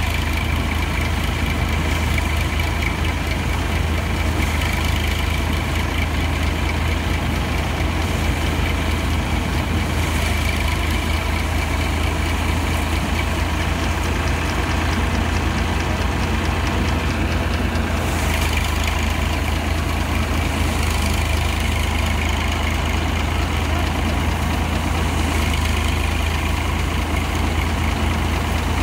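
Tractor engine running at a steady speed, driving a paddy threshing machine, with a constant low drone.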